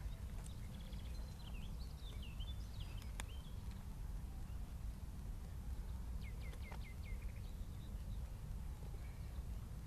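Small birds chirping over a steady low rumble outdoors: scattered high chirps in the first few seconds, a sharp click just after three seconds, and a quick run of about six short falling chirps around six to seven seconds in.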